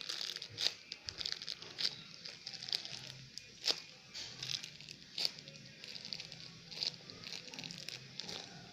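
Irregular crinkling and crackling of a tape-covered homemade squishy being squeezed and handled.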